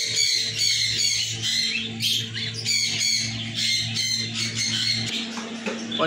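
Budgerigars chattering and squawking, a fast, continuous run of short, high, sweeping calls. A steady low hum runs underneath, part of it dropping out about five seconds in.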